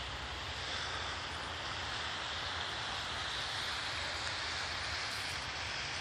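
Steady outdoor background noise: an even hiss with a low rumble underneath.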